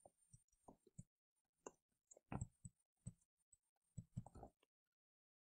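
Near silence broken by faint, irregular taps and ticks of a stylus on a tablet screen during handwriting, a dozen or so, a little closer together about two seconds in and again about four seconds in.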